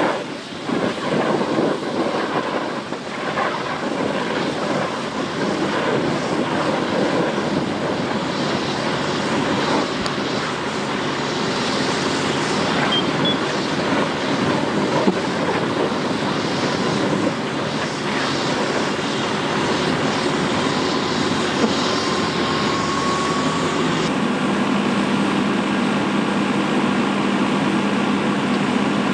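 Semi-truck cab fully on fire, burning with a steady rushing noise and irregular crackling. A steady low hum joins about three-quarters of the way through.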